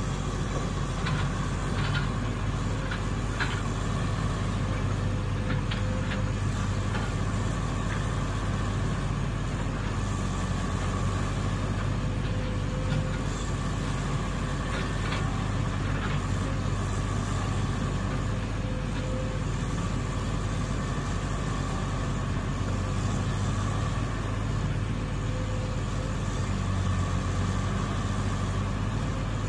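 Diesel engine of a piece of heavy road-construction machinery running steadily, with a few short metallic knocks in the first several seconds and again about halfway through.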